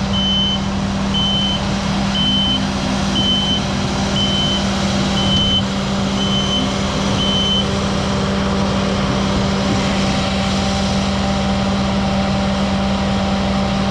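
Skid steer loader engine running steadily while its reversing alarm beeps about once a second, eight beeps, stopping about halfway through.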